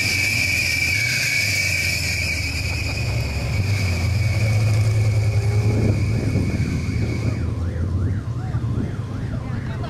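Off-road race trucks' engines running low as they drive slowly past, swelling as one passes close by. Over them a steady high-pitched tone sounds and cuts off suddenly about seven and a half seconds in.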